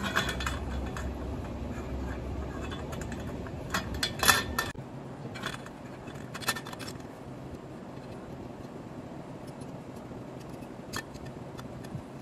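Metal parts and hand tools being handled while fitting a motorcycle exhaust: scattered metallic clinks and scrapes, with a louder cluster about four seconds in. A low steady hum underneath cuts off shortly after that cluster.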